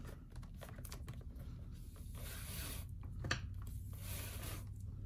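Leather lace being pulled through the leather web loops of a baseball glove: a dry rubbing, zip-like sliding in a few long strokes, with a light click a little past three seconds in.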